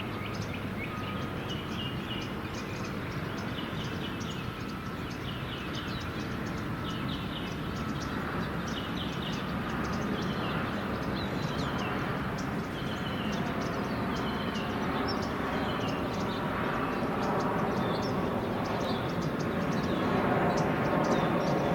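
Steady low rumble of distant traffic with small birds chirping over it, short quick calls repeated again and again; the rumble builds slightly toward the end.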